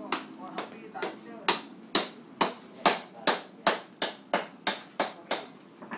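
A run of about fourteen sharp, ringing knocks at roughly two a second, getting slightly faster toward the end, like steady hammering.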